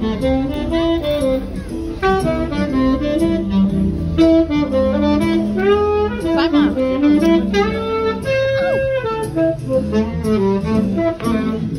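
A saxophone playing a jazz melody live, the line stepping up and down in pitch, over a steady bass line.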